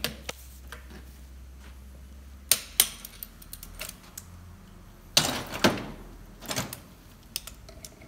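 Ratchet wrench clicking in short runs as brake disc bolts are tightened on a motorcycle wheel, with sharp metal clinks of the tool. There are single clicks in the first few seconds and busier runs of ratcheting about five and six and a half seconds in.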